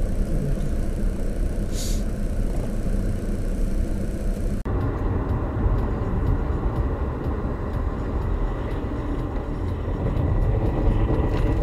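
Steady low rumble of car engine and road noise inside a car's cabin, as picked up by a dashboard camera. About four and a half seconds in the sound changes abruptly to another dashcam's recording of driving, with a faint steady high whine over the rumble.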